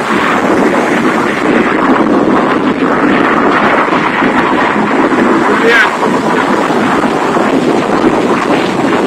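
Steady loud rush of road and wind noise inside a car's cabin travelling fast through a tunnel, with a brief high rising squeak a little past halfway.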